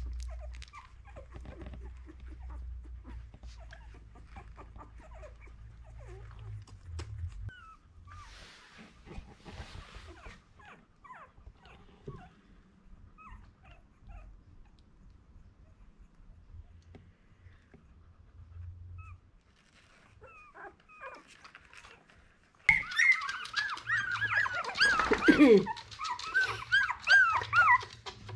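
Two-week-old Miniature Australian Cattle Dog puppies squeak and whimper now and then. Near the end several cry loudly at once, a busy chorus of rising-and-falling squeals.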